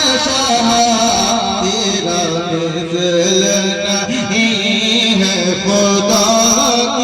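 A man's voice singing a long, drawn-out melismatic passage of a naat, the pitch winding up and down through held notes without clear words.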